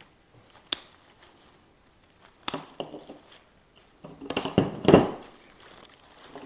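Artificial flower stems being clipped off a bunch: a sharp snip about a second in, then crackly rustling and crunching of the plastic flowers being handled, loudest a little before the end.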